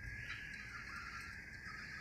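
Faint, steady road and engine noise heard inside the cabin of a moving Toyota.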